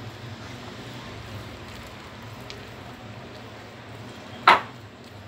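Hands mixing flour and milk into a soft dough in a glass bowl, faint squishing over a steady low hum. One short sharp knock about four and a half seconds in.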